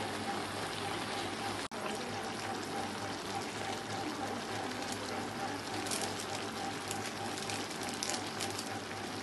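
Mushroom and cheese curry simmering in a pan, a steady bubbling hiss with small crackles. The sound cuts out for an instant just under two seconds in.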